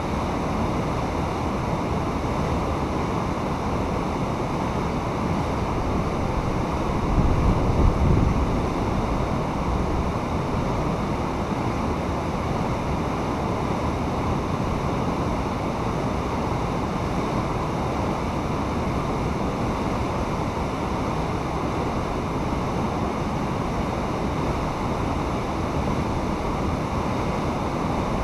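Fast water rushing steadily down a rock-lined channel in a constant, even wash of noise. A brief low rumble comes about seven seconds in.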